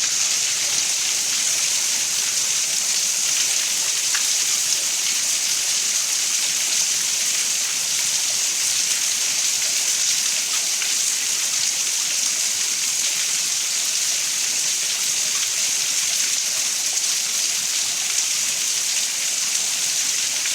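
Rain pouring down during a thunderstorm, a steady even hiss with no thunder claps.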